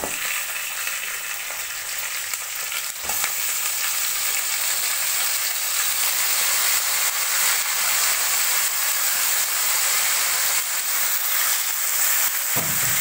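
Goat head meat sizzling in hot oil in a steel kadai with sautéed onions and curry leaves, just after the meat has gone in. The steady sizzle starts sharply and grows louder about three seconds in.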